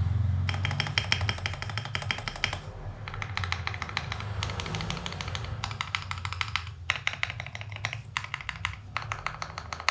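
Typing on a mechanical keyboard with thick-walled (1.5 mm) PBT XDA-profile keycaps over Gateron yellow switches: fast runs of keystrokes in several bursts with short pauses. The keystrokes sound deep and muffled ('thocky'), which the thick keycap walls give.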